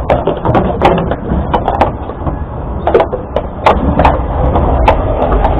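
Horse-drawn tram: irregular clops of the horse's hooves and knocks and rattles from the tram's wooden body and harness fittings, over a low rumble that grows a little stronger near the end.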